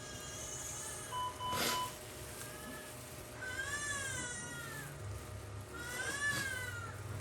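Newborn baby giving short fussy cries, three of them, each about a second long and rising then falling in pitch. A brief beep with a knock about a second and a half in.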